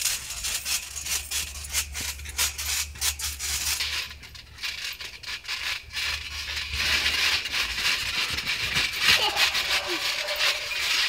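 Trampoline in use: irregular knocks, creaks and rattles from the mat, springs and frame as children bounce on it, with faint children's voices near the end.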